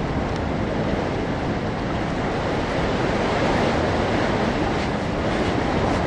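Steady rush of ocean surf in a coastal sea cave, mixed with wind.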